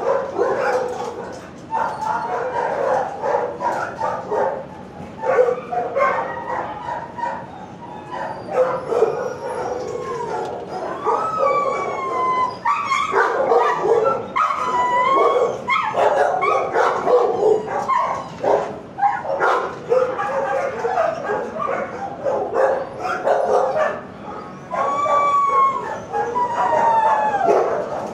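Shelter dogs barking over one another in a kennel block, with yips and a few drawn-out howls that bend up and down in pitch, the clearest about halfway through and again near the end.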